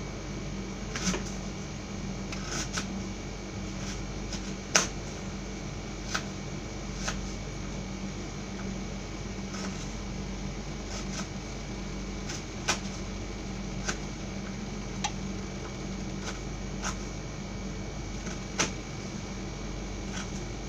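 Short, sharp knife clicks at irregular intervals of about one to two seconds as food is cut by hand over a bowl, the loudest about five seconds in, over a steady low hum.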